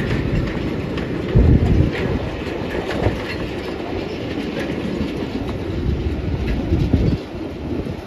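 Cane train bins on narrow-gauge track rolling slowly past, their wheels making a steady rumble broken by irregular knocks on the track, with the loudest knock about a second and a half in.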